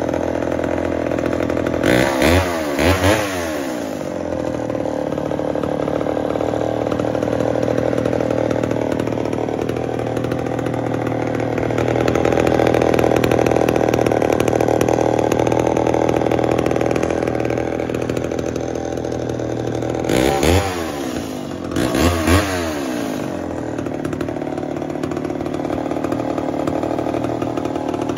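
1965 Poulan 361 two-stroke chainsaw idling steadily, its throttle blipped twice about two seconds in and twice more about twenty seconds in, each time revving up briefly and dropping back to idle. It is running after a carburettor rebuild and tune, which the owner says has it at 100 percent.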